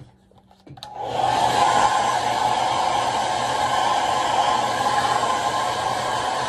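Handheld hair dryer switched on about a second in, then running steadily as it dries a freshly bathed Shih Tzu's wet coat.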